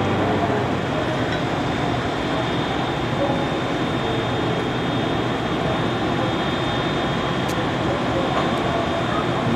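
Steady rumble and hiss of a large passenger ferry's machinery, with a faint, steady high whine on top.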